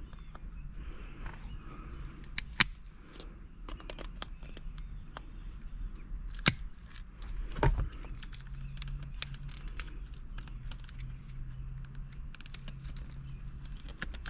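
Hand work at a car's shifter: scattered sharp clicks and small rattles as a piece of the shift boot is cut and pried at, with a low steady hum starting about halfway through.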